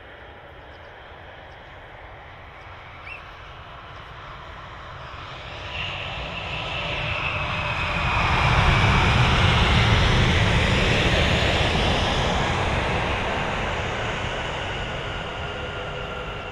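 Jet airliner passing close by: engine noise swells over several seconds to a loud peak about halfway through, with a whine that falls in pitch as it goes past, then slowly fades.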